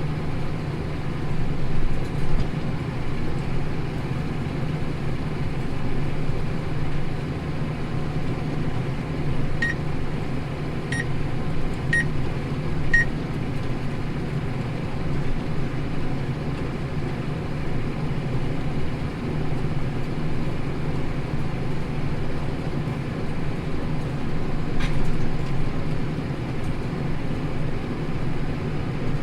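New Holland tractor engine running steadily under load while ploughing, heard from inside the cab. Four short high beeps about a second apart come roughly a third of the way in.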